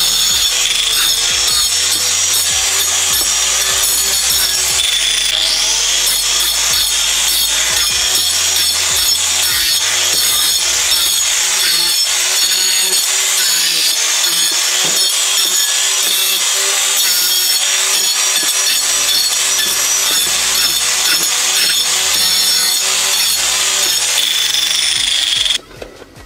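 Electric angle grinder with a cutting disc slicing through a block of ice: a loud, steady high whine with grinding and scraping as the disc bites into the ice. It cuts off abruptly near the end.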